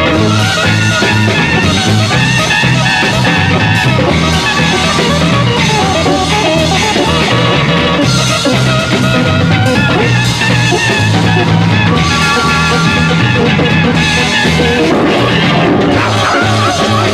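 A 1960s rock group playing with drum kit, guitar and a pulsing bass line, a full band sound with no clear lead vocal.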